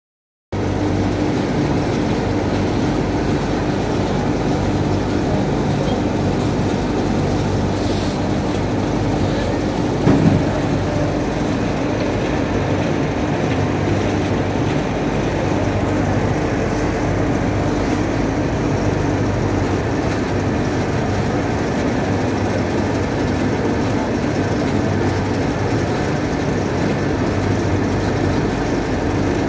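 Steady mechanical hum of industrial garment-pressing machinery, with a brief knock about ten seconds in.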